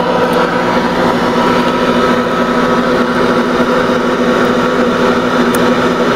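Ankarsrum Assistent Original stand mixer running at its top speed, kneading a large bread dough with its roller. The motor gives a loud, steady hum.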